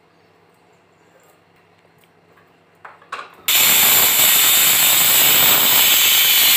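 A couple of small metal clicks as the whistle weight goes onto an aluminium pressure cooker's vent, then about three and a half seconds in the cooker whistles: a sudden, loud, steady hiss of steam escaping from under the weight, a sign that the cooker has come up to pressure.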